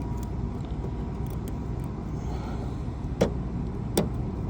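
Two sharp metallic clicks, about three and four seconds in, over a steady low rumble, with small light ticks of handled keys and tools.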